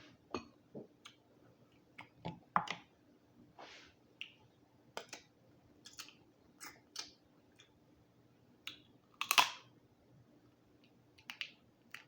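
Dungeness crab shell being cracked with the teeth and chewed: scattered irregular clicks and crunches of shell, with one loudest crunch about nine seconds in.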